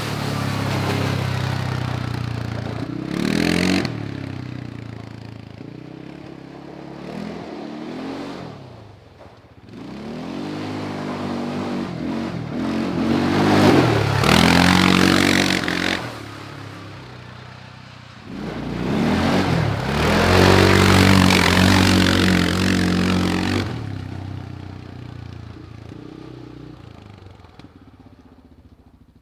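CFMOTO CForce 520L quad's single-cylinder engine accelerating and passing by several times, its revs rising and falling. The loudest passes come about halfway through and again about two-thirds of the way in, and the sound fades away near the end.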